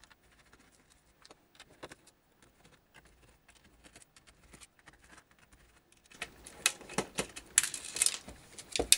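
Faint, scattered clicks as a small screwdriver backs screws out of the Lambda 8300's plastic keyboard. About six seconds in comes louder, irregular clicking and clatter as the keyboard is handled and taken apart, its circuit board coming off the rubber key mat.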